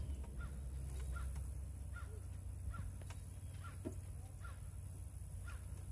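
Faint, repeated cawing of a crow, about one call a second, over a steady high-pitched whine.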